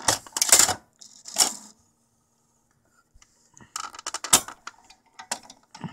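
Scattered clicks and light clatter of small hard objects being handled, in a few clusters with short quiet gaps, the sharpest knock about four and a half seconds in.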